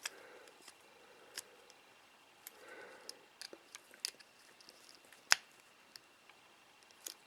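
Faint, scattered clicks and taps of small tools and plastic parts being handled on a micro drone, with one sharper click about five seconds in.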